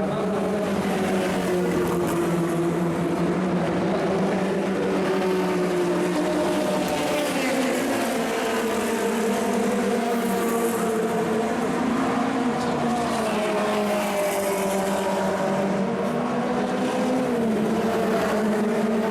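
Several 1960s cigar-shaped Formula 2 and Formula 3 race car engines running together at fairly steady speed. Their pitches drift slowly up and down, one holding a steady low note under the others.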